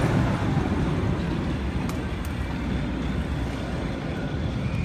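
Steel roller coaster train of an Arrow looping coaster rumbling along its track: a steady low rumble, with two short clicks about two seconds in.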